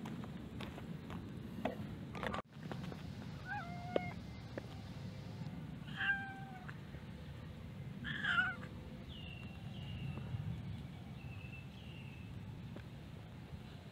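Calico cat meowing about three times, a couple of seconds apart, the third the loudest, followed by several short, fainter, higher calls.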